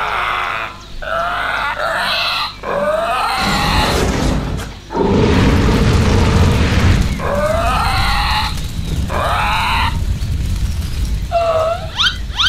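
Dubbed dinosaur growl and roar sound effects: short calls that bend up and down in pitch. A few seconds in, a loud low rumble of fire and explosion effects takes over, and more growls sound over it later.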